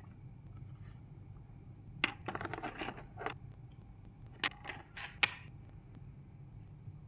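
Small hard objects being handled: a short clattering rattle about two seconds in, then a few sharp separate clicks.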